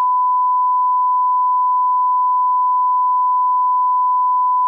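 Broadcast line-up test tone, the 1 kHz reference tone that goes with colour bars: one loud, steady, unbroken beep at a single pitch.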